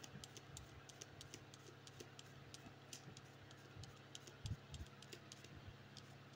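Faint, quick clicks, several a second, of an unripe plantain being slid across a handheld slicer's blade, cutting off thin rounds. A soft thump comes about four and a half seconds in.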